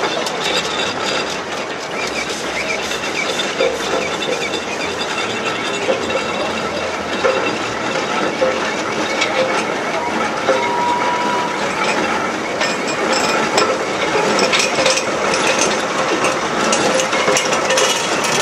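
Fowler steam roller driving slowly along, its machinery clanking steadily with many small clicks.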